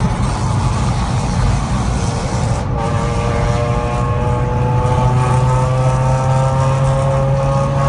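Car exhaust fitted with a Varex valved exhaust, running loud with a deep drone, heard from inside a following car. From about three seconds in, the engine note climbs slowly as the car accelerates.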